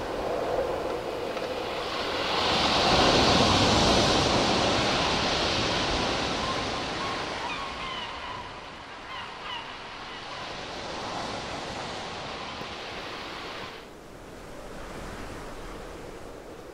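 A rushing, wind-like noise that swells about two seconds in and then slowly fades, with a few faint chirps near the middle.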